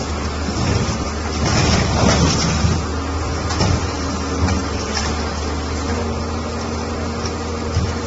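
Hyundai excavator's diesel engine running steadily while its hydraulic scrap shear works on scrap steel, with scattered clanks and crunches of metal, the loudest about two seconds in.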